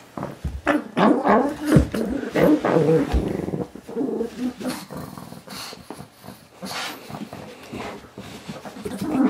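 Pug growling in play while tugging at a plush toy, loudest in the first few seconds and quieter after. A few low thumps come in the first three seconds.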